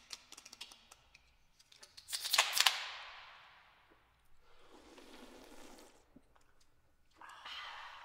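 Aluminium drink cans: a patter of small clicks as fingertips work the tabs, then several cans cracked open almost together about two seconds in, a sharp pop followed by a fizzing hiss that fades. A softer rushing noise follows, and a breathy sigh begins near the end.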